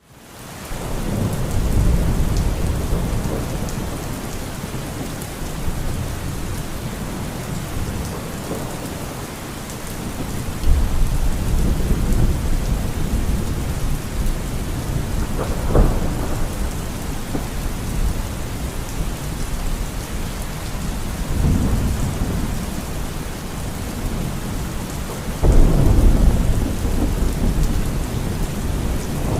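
Heavy rain falling steadily in a thunderstorm, with thunder rumbling five times; the fourth roll, about halfway through, is sharper, and the last, near the end, is the loudest.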